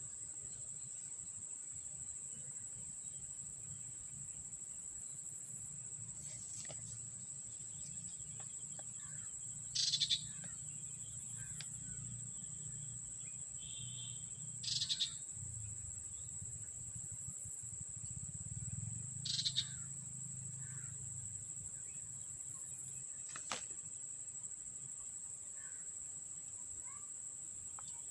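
Insects keep up a steady high-pitched trill, with three short, loud bird calls about five seconds apart.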